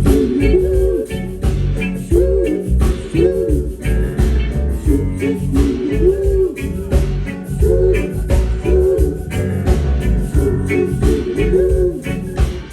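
Reggae band playing: a heavy bass line and a steady drum beat, with a melody line over them.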